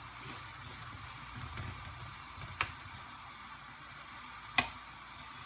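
Spatula stirring food in a frying pan. It knocks sharply against the pan twice, the second knock louder and near the end, over a steady low background hum.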